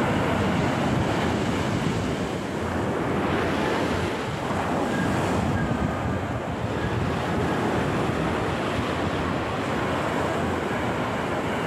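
Ocean surf breaking and washing up the beach in a steady rush that swells and eases every few seconds, with wind buffeting the microphone.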